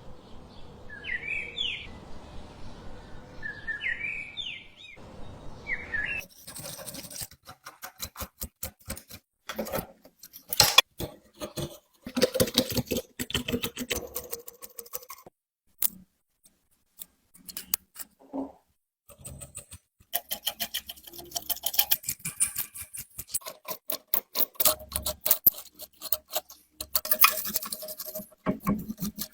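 Birds chirping for the first few seconds, then a long irregular run of sharp clicks, taps and knocks, with brief pauses, from hands and tools working on the metal parts of a rusty antique ice crusher.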